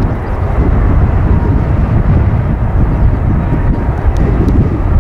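Boeing 747-400's four turbofan engines on final approach: a loud, steady jet rumble, deepest in the low end, with a faint steady whine over it.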